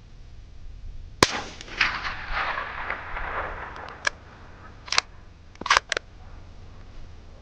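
One shot from a suppressed Ruger American Gen 2 .308 bolt-action rifle about a second in, its report echoing away over about two seconds. A few seconds later come four short metallic clicks, typical of the bolt being cycled to eject the case and chamber the next round.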